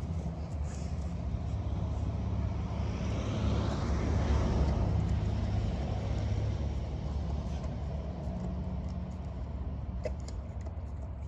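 A road vehicle passing by: a steady low rumble with a rushing noise that swells to a peak about four seconds in and then fades away.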